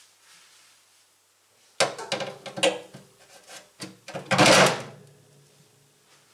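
Metal car parts clanking and scraping as they are handled and pushed into place: a run of sharp knocks starting about two seconds in, then a louder scrape with a short metallic ring.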